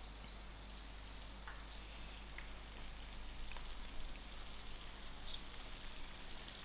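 Glazed lamb ribs sizzling faintly in a hot roasting tray just out of the oven, a light even hiss with small ticks, growing a little louder as the tray comes closer. A light knock about four seconds in as the tray is set on the counter.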